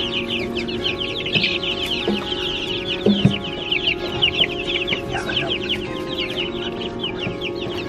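Dense peeping of a brooder full of ducklings and chicks: many short, high, falling peeps overlapping without a break.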